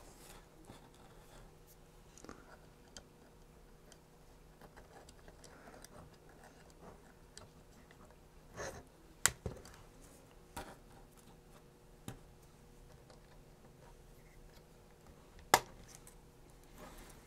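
Small robot-car kit parts being handled and fitted together by hand: faint rubbing and fumbling, broken by a few sharp clicks, the loudest about 9 seconds in and again near 15 seconds.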